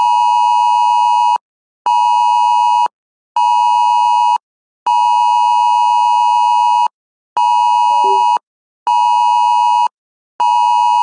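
Electronic alert beep, one steady tone near 900 Hz, pulsed in a repeating pattern: about two seconds on, then two one-second beeps, with half-second gaps between.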